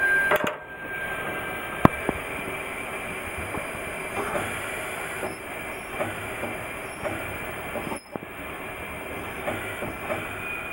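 Cab noise of an ex-Nankai electric railcar running on the line: a steady rumble with irregular clicks of the wheels over rail joints. A high steady tone stops with a sharp click about two seconds in.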